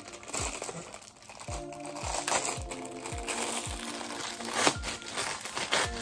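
Thin plastic food wrapper crinkling as it is peeled off a pancake-and-sausage on a stick, over background music with a steady beat.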